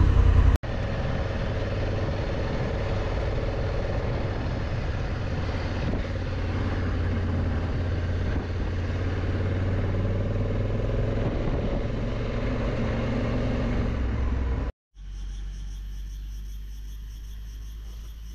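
Honda Africa Twin parallel-twin motorcycle running on the road, a steady engine and road rumble. About fifteen seconds in it cuts to a quieter steady low hum.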